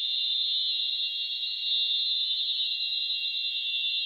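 Chorus of cicadas droning: one loud, steady, high-pitched buzz that holds without a break.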